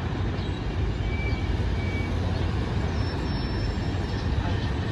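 Steady rumble of heavy road traffic: cars, vans and buses crawling in a jam on a main road below.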